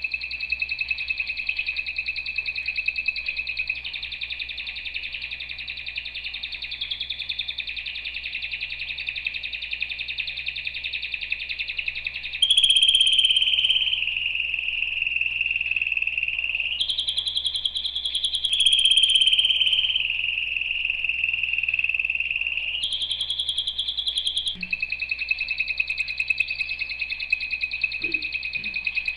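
Domestic canary singing a long, unbroken song of rapid trills and rolls, shifting several times in the second half into higher, louder trilled phrases before returning to the lower roll.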